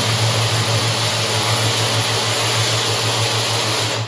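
RS-612A automatic plastic parts assembly machine running: its vibratory feeder bowls hum steadily with a pulsing low drone, under a loud, even hiss that cuts off at the very end.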